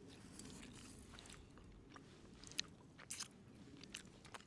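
Quiet chewing of a bite of lemon-and-dill fish cooked over a campfire, with a few faint clicks and taps a few seconds in.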